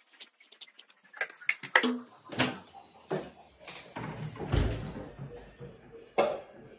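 Metal cookware being handled on a gas stove: a run of knocks and clanks, a heavier thud about four and a half seconds in, and a sharp clank just after six seconds as an aluminium pot is set down on the burner grate.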